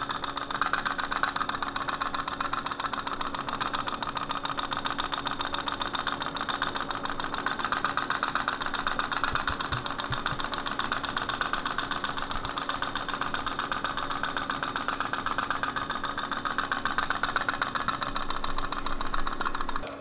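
Tin pop-pop boat running steadily with a rapid pop-pop-pop. The candle under its small boiler turns the water to steam, which puffs out the pipes and drives the boat along.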